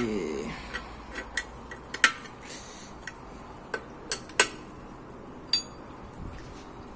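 Metal clutch parts of a Demak Eco 110 engine clinking and clicking as they are handled and fitted by hand: a scattered series of sharp metallic clinks, the loudest about two seconds and four and a half seconds in.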